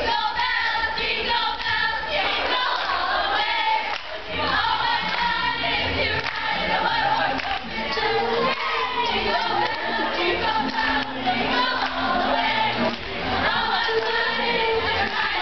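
A recorded song with singing, played over the sound system for the dancers.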